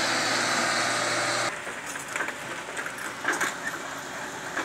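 D60 dump truck's engine running hard and steadily under load, climbing a muddy slope. It stops abruptly about a second and a half in, giving way to a quieter crawler excavator's running engine with a few scattered metallic clanks.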